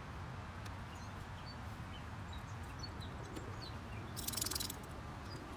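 Outdoor ambience: scattered bird chirps over a steady low background rumble, with a brief rattling clatter about four seconds in.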